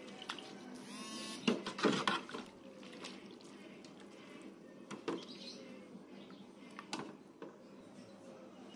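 Metal ladle stirring in a stainless steel pot of coconut-milk soup, scraping against the pot with a short squeak about a second in and a few sharp clinks of metal on metal.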